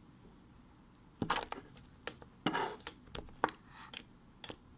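Slime being stretched and squished by hand, giving a run of sharp, irregular pops and crackles as air pockets in it burst, beginning about a second in.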